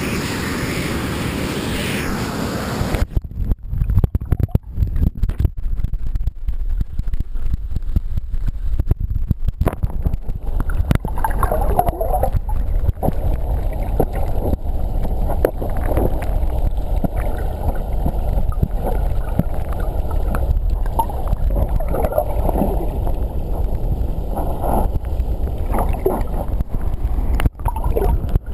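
Rushing creek water that turns muffled about three seconds in as the camera goes under water: from then on a low underwater rumble with bubbling and many small clicks and knocks.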